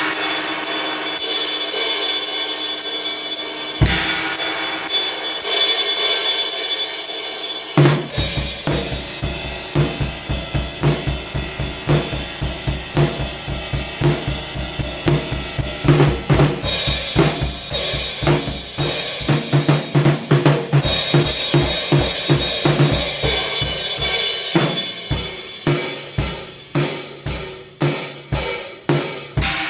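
Music driven by a drum kit. For about the first eight seconds it is a steady hi-hat or cymbal pattern over held notes. Then bass drum and snare come in with a full, fast groove for the rest.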